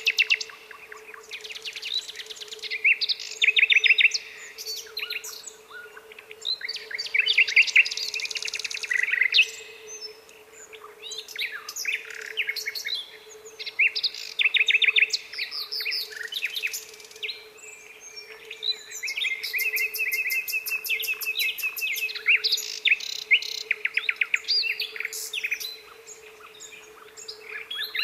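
Nightingale singing: phrases of rapidly repeated notes and rattling trills, broken by short pauses, with a faint steady hum underneath.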